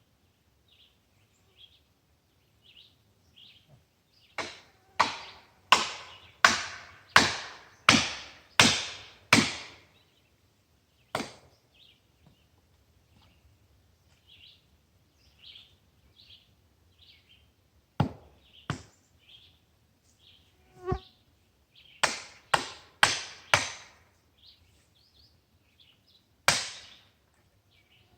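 Hand saw cutting through dead ash wood in quick, even strokes: a run of about eight strokes, then a pause, then a few single strokes and a short run of four, with a last stroke near the end.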